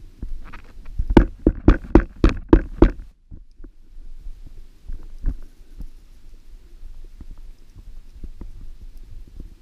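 A quick run of about seven sharp knocks in under two seconds, then a few fainter scattered clicks, over a steady low rumble.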